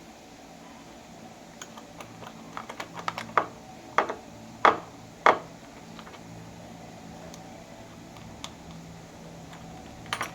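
Door knob hardware being handled and fitted: scattered light clicks, then four louder knocks that ring briefly, between about three and five and a half seconds in.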